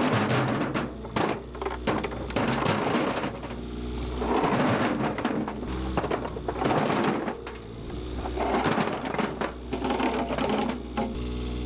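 A power tool running in repeated short bursts, about six in a dozen seconds, over a steady low hum.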